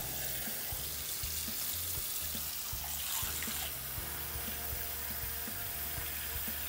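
Kitchen faucet running a steady stream of water into a stainless steel saucepan of ham hocks, filling the pan.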